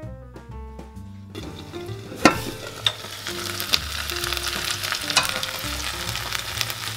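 Shumai dumplings sizzling and crackling in a frying pan, a dense hiss that starts about a second in, with one sharp clack about two seconds in. Soft background music underneath.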